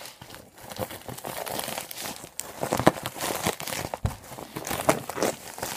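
Plastic mailer bag crinkling and rustling as it is handled, in a rapid, irregular run of crackles.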